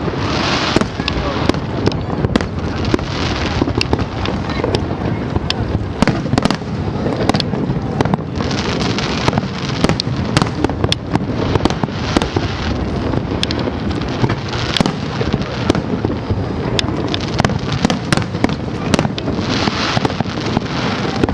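Aerial fireworks display in a continuous barrage: many sharp bangs and crackles a second over a steady rumble of bursts.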